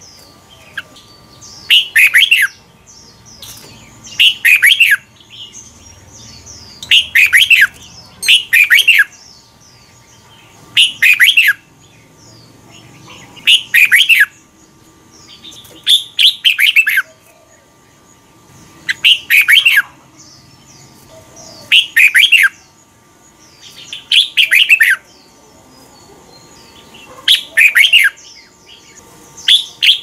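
Red-whiskered bulbul singing short, loud phrases, each a quick cluster of whistled notes, repeated about every two and a half seconds.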